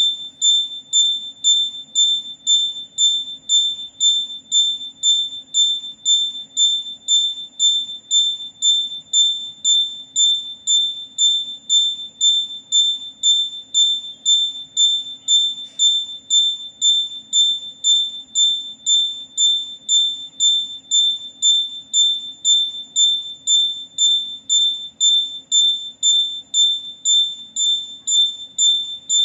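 Electronic buzzer beeping on and off in a steady, fast rhythm, just under two high-pitched beeps a second, over a faint steady low hum.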